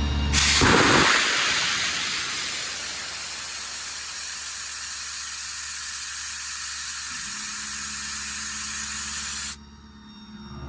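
Compressed air from the truck's Boss hydraulic-driven air compressor rushing out in a loud, steady hiss. It starts suddenly with a stronger first second and cuts off abruptly near the end.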